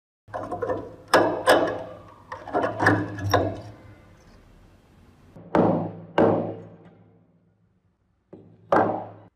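Steel pliers picking and prying crusted rust from a rusted iron padlock body: a run of sharp metallic knocks and scrapes, then a few harder clanks that ring briefly.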